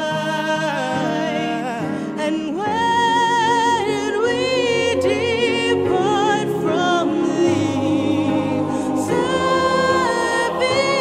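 Background music: a choir singing slow held notes with vibrato.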